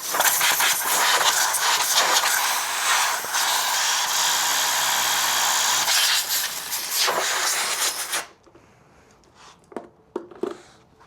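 2024 KTM 300 XC-W's single-cylinder two-stroke engine running, then stopping abruptly about eight seconds in. A few faint knocks follow.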